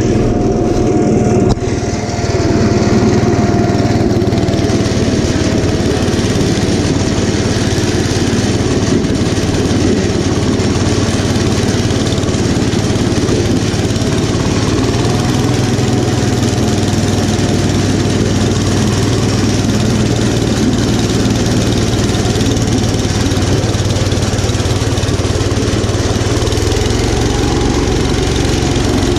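Kohler K241 10 hp single-cylinder engine of a 1972 Gravely Commercial 10A running steadily under load while its snowblower attachment throws snow, with a steady whine over the engine note. The sound dips briefly about a second and a half in.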